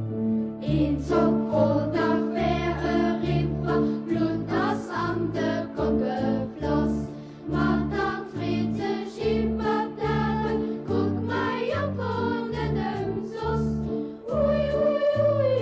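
Choir singing a song in Luxembourgish over instrumental accompaniment with a repeating bass line; the voices come in about a second in.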